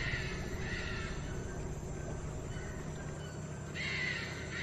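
Harsh animal calls, two near the start and two more near the end, over a steady low background.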